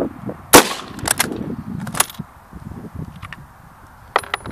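A single shot from a Swedish M96 Mauser rifle in 6.5x55mm about half a second in, followed by a few fainter sharp cracks over the next second and a half. Near the end come quick metallic clicks as the bolt is lifted and drawn back.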